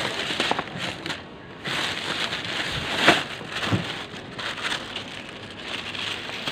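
Rustling, crinkling handling noise while the phone is carried at a walk, with a sharper knock about three seconds in.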